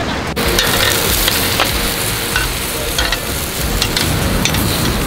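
Sausages sizzling on a portable gas grill: a steady hiss with scattered small pops and crackles.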